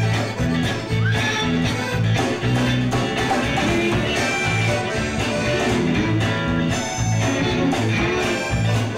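Live band in an instrumental stretch: electric guitars and fiddle over a steady beat of bass and drums. Dubbed from an old VHS tape.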